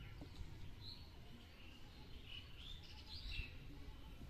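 Small birds chirping, a handful of short high calls clustered from about a second to three and a half seconds in, over a low steady rumble.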